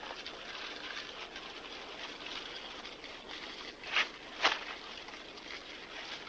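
Steady crackling hiss from a small twig fire singeing a spiny cactus stem, with two sharp cracks about half a second apart a little past the middle.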